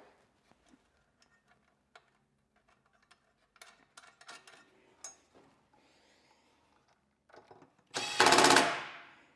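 Light clicks and taps of small parts being handled, then near the end a loud burst of rapid hammering, about a second long, from a power driver running a screw in.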